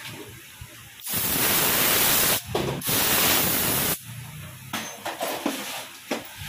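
A loud, steady spraying hiss of pressurised air or spray, aimed at the left handlebar grip while the grip is being fitted. It lasts about three seconds, starting about a second in, with a brief break midway. It stops suddenly, and a few small knocks follow.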